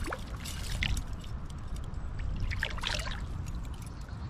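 Water splashing and trickling in two short irregular spells, about half a second in and around three seconds in, over a steady low rumble.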